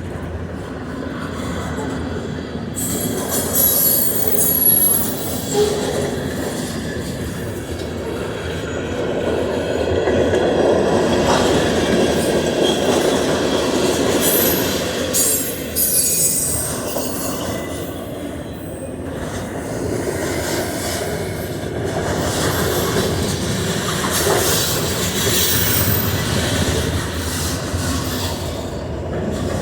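Norfolk Southern freight train rolling past, its cars rumbling and clacking over the rails, with a few brief high wheel squeals.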